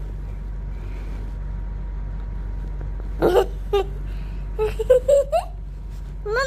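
Pet parrot calling: a sharp squawk about three seconds in, a brief chirp after it, then a quick run of short notes that rise at the end, over a steady low hum.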